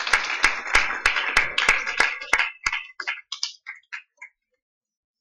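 Audience applause. One loud clapper near the microphone claps at a steady beat over the crowd, thinning to a few scattered claps and dying out a little over four seconds in.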